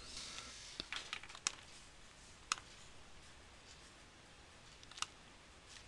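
Faint computer mouse clicks: about five short, sharp single clicks spread over several seconds, with the clearest near the middle and one about five seconds in, against quiet room tone.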